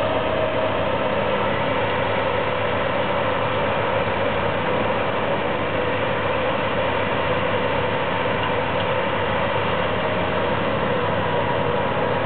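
An engine running steadily, a constant drone with a few held tones and no change in level.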